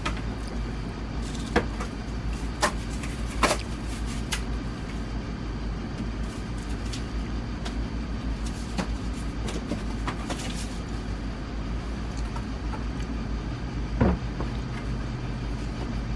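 Scattered knocks and clicks from a refrigerator's door panel and cardboard shims being handled and fitted, the loudest knock about fourteen seconds in, over a steady low hum.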